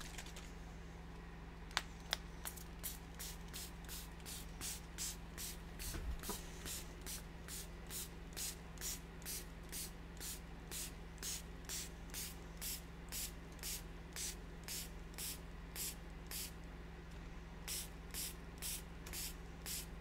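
Small plastic fine-mist spray bottle pumped over and over, each pump a short hiss of mist, a little over two a second with a brief pause near the end, spraying acrylic ink onto paper.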